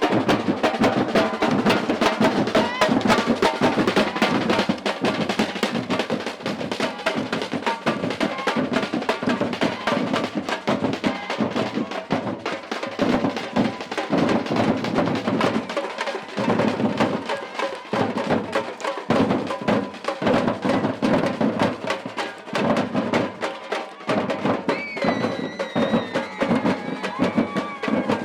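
Samba batucada percussion ensemble playing drums in a dense, steady rhythm.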